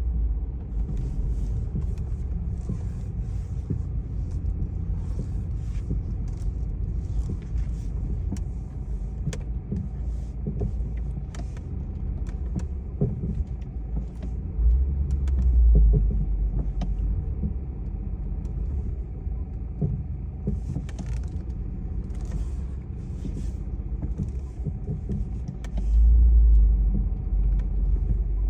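BMW F20 driving with a steady low rumble, scattered sharp knocks and two louder low rumbling surges, one about halfway through and one near the end. This is the front-axle noise that comes up under braking and light acceleration, only when it is over 25°C.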